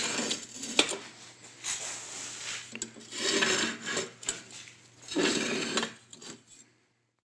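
Forge doors, fire bricks in angle-iron frames, sliding on their rollers: metal scraping and rumbling in two strokes with a few clicks.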